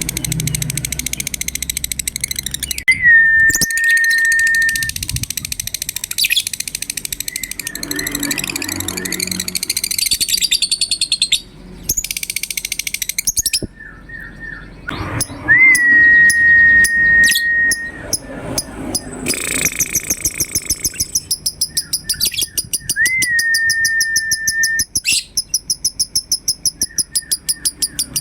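Lovebirds calling in fast runs of shrill, high chattering chirps. Three times, a long steady whistled note that holds one pitch for about two seconds cuts through the chatter.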